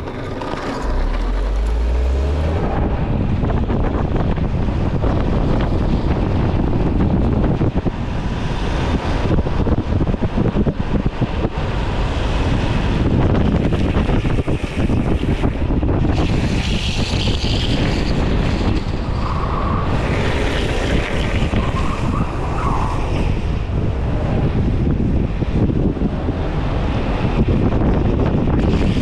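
Wind rushing over the microphone and skateboard wheels rolling on asphalt during a fast downhill skateboard run, a steady loud noise throughout.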